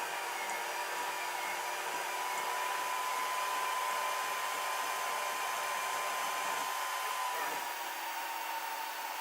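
Steady fan-like whirring with a faint high tone that drops slightly in pitch about seven seconds in, typical of a running Kossel delta 3D printer's cooling fans and motors.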